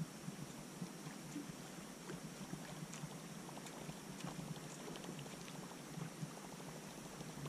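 Faint lapping and trickling of water against a small boat's hull, with scattered light ticks.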